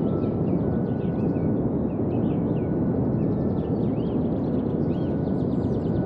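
A steady low rushing noise, with small birds chirping over it in short rising-and-falling calls and quick ticking trills.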